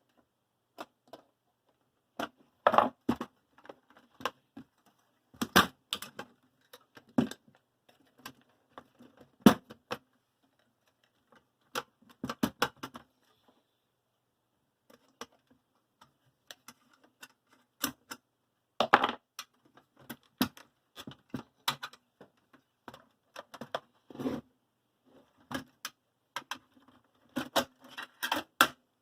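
Sheet-metal tabs on the drive bay of a Sky HD box being worked straight with a tool: irregular metallic clicks, taps and clatter, in short clusters with pauses between.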